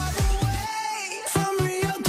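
Electronic dance music with a steady beat of falling bass notes; the bass drops out for a moment about halfway through, then comes back.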